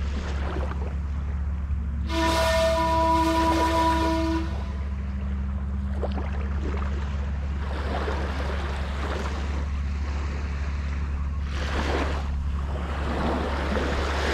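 Small waves washing up on a sandy beach. About two seconds in, a steady horn sounds for about two and a half seconds, the loudest thing here.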